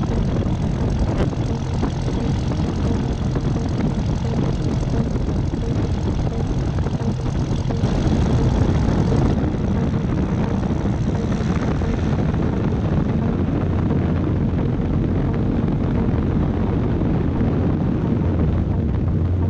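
Aviat Husky's piston engine and propeller running close by, with a rush of air over the microphone. It grows louder about eight seconds in as the aircraft rolls across the grass and picks up speed.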